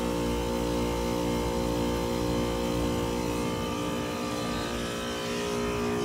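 Air-conditioner condensing unit running with its compressor on but its outdoor fan not turning: a steady electrical hum made of several even tones, without the rush of fan air.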